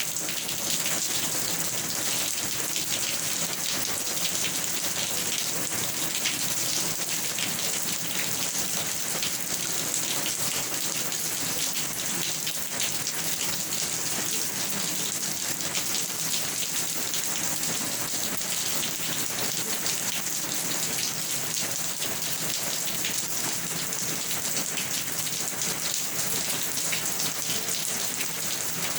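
Steady rain falling, a dense, even hiss of many drops striking a surface.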